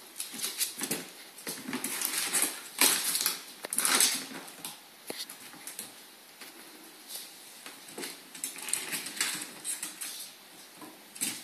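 A ferret's claws scrabbling and pattering as it climbs over a hard plastic box lid and onto a cardboard box: irregular scratches and light knocks, loudest about three to four seconds in.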